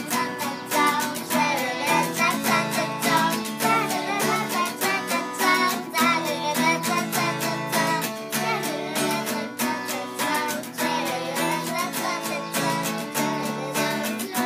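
Young girls singing together to a strummed acoustic guitar.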